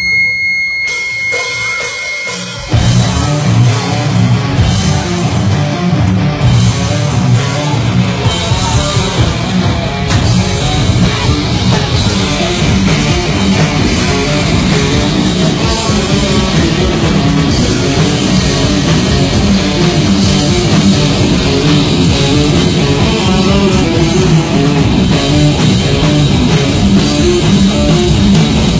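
Heavy metal band playing live, with electric guitars, bass and a drum kit. After a quieter lead-in, the full band comes in loud about three seconds in and keeps playing steadily.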